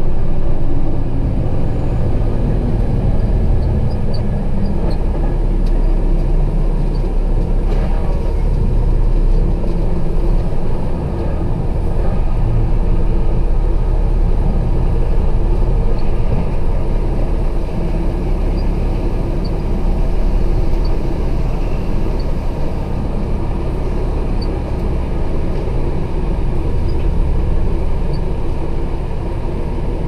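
Truck's diesel engine running steadily at low speed, heard from inside the cab.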